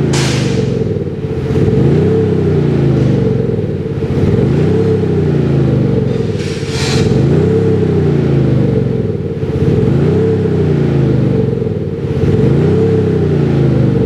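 Virtual exhaust sound unit on a Mercedes-Benz W213 E350 playing a synthesized AMG GT exhaust note through its speaker. The note revs up and falls back about five times, one blip every two to three seconds.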